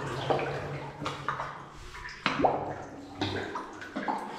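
Water sloshing and splashing as a person wades through a flooded mine adit, a fresh splash about once a second with each stride.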